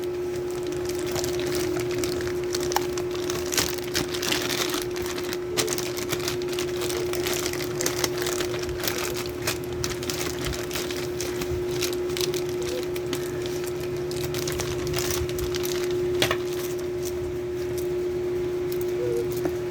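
Packaging being handled and unwrapped during an unboxing, with scattered clicks, cracks and crinkles, one sharper crack about 16 seconds in. A steady hum runs underneath.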